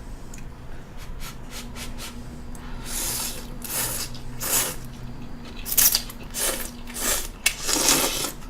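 Ramen noodles being slurped from close up: a series of wet, hissing slurps, strongest about halfway through and near the end, with a faint steady low hum underneath for most of it.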